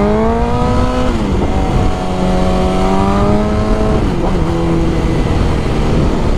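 2001 Suzuki GSX-R 1000's inline-four engine with a loud pipe pulling under acceleration. The revs drop sharply at upshifts about a second in and again about four seconds in, then hold steady, with wind rush over the microphone.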